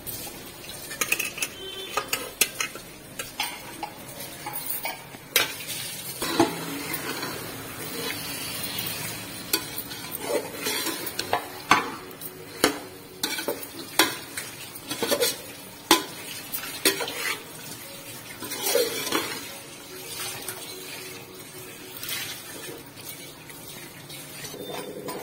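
Perforated metal skimmer scraping and knocking against a metal cooking pot as raw chicken pieces are stirred into frying masala, with a sizzle underneath. The knocks come irregularly, about one or two a second.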